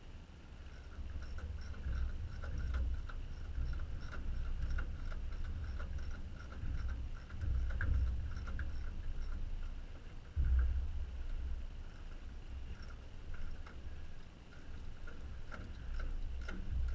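Quarter-inch drive ratchet clicking in short, uneven strokes as it tightens a hose clamp on a turbo-to-intercooler boot. A low rumble rises and falls underneath it, with louder swells around the middle.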